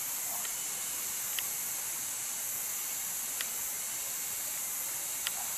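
Steady high-pitched drone of forest insects, with a few faint ticks scattered through it.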